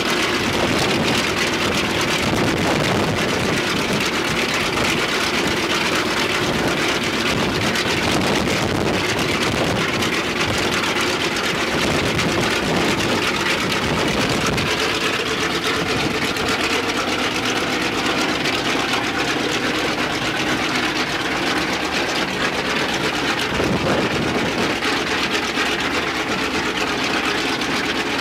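Ilyushin Il-14T's left engine, a Shvetsov ASh-82T fourteen-cylinder radial piston engine, running steadily during a ground run.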